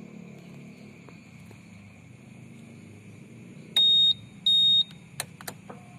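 Two short, loud, high electronic beeps from a piezo buzzer, about half a second apart, over a low engine idle. Two sharp clicks follow, and a faint steady hum starts near the end.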